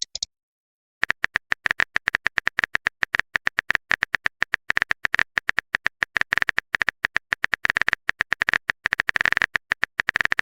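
Rapid, even keyboard-typing clicks, about eight or nine a second, starting about a second in: the typing sound effect of a texting-chat animation.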